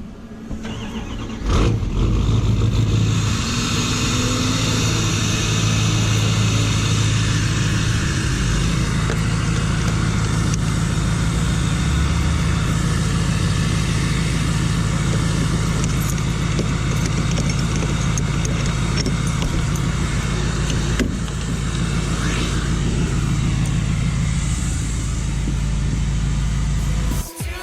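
A road vehicle's engine running steadily with a low drone, loud from about a second and a half in.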